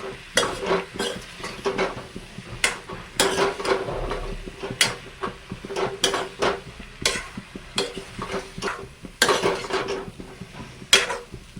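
A utensil stirring potatoes frying in a pan, with repeated irregular knocks and scrapes against the pan over a light sizzle and a steady faint hum.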